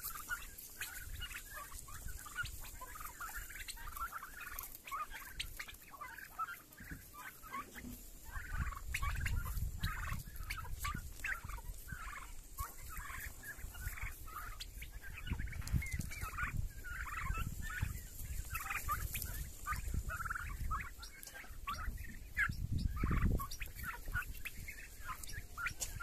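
A flock of young domestic turkeys calling, many short calls overlapping without a break, with low rumbles now and then.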